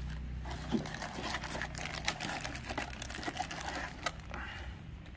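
Cardboard packaging and a plastic bag being handled: scattered small taps, clicks and crinkles over a steady low hum.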